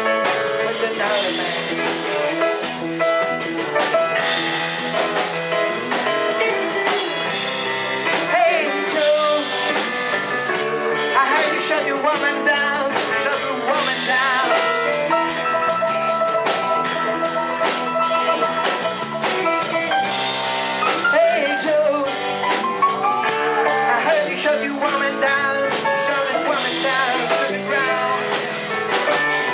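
Live blues-rock band playing: electric guitars through an amplifier over a drum kit, with a lead line of held and bending notes and no vocal.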